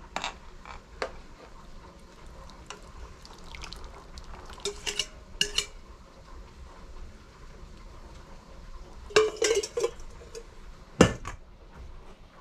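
Wire whisk scraping and clinking against a stainless steel mixing bowl while egg batter is poured into an aluminium foil baking pan. There are a few clusters of clicks and one sharp knock about eleven seconds in.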